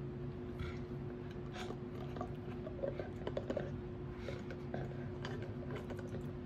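Saint Bernard gnawing a hard plastic-like chew bone, with irregular clicks and scrapes of teeth on the toy. The clicks are densest about halfway through. A steady low hum runs underneath.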